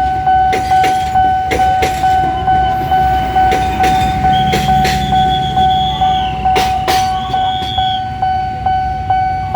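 Railway level-crossing alarm ringing, a steady electronic tone pulsing about twice a second, over the low rumble of a train with scattered sharp clacks of wheels crossing rail joints.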